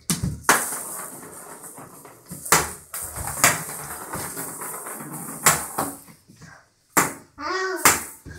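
Small toy balls knocking and bouncing on a hardwood floor, a series of sharp clacks at uneven intervals, mixed with the thumps of a crawling toddler's hands and knees. A toddler gives a brief vocal sound near the end.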